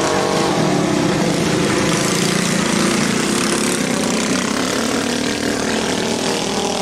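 Several minibike engines running at racing speed, their pitch rising and falling with the throttle. One bike passes close about three to four seconds in.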